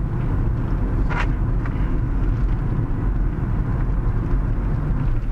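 Car in motion heard from inside the cabin: a steady low rumble of engine and road noise. A short click about a second in.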